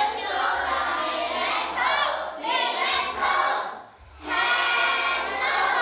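A class of children singing together with adult volunteers leading them, many voices at once; the singing breaks off briefly about four seconds in, then resumes.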